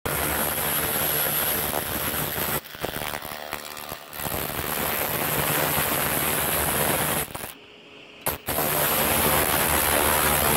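Handheld 1 kW laser rust remover ablating rust off a steel plate with a shower of sparks: a loud, dense hiss that stutters about two and a half seconds in, then cuts out for about a second around seven and a half seconds in before starting again.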